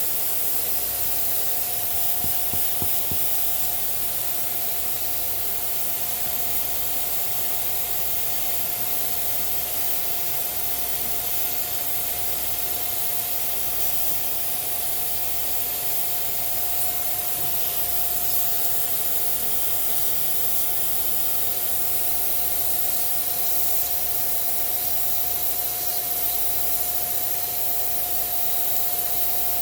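Electric air-moving cleaning tool running steadily to blow or suck dust out of an old sewing machine: a loud rushing hiss with a steady whine from the motor, a little annoying.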